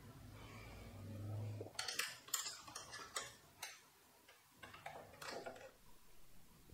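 Faint, irregular clicks and taps of hands handling a motorcycle's plastic coolant reservoir and the parts around it. A low hum comes first and stops a little under two seconds in.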